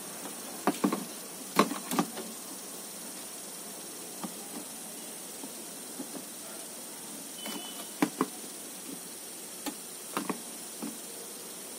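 Scattered light clicks and knocks of a circuit board and its cables being handled and fitted into an LED TV's back chassis, over a steady hiss.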